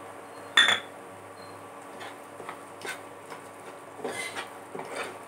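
A steel spoon clinks sharply once against the frying pan about half a second in, then scrapes and stirs broken wheat (dalia) roasting in ghee, with scattered light scrapes and clicks.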